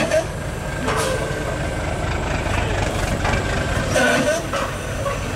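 A heavy truck's diesel engine idling steadily, with a few short knocks and clanks over it.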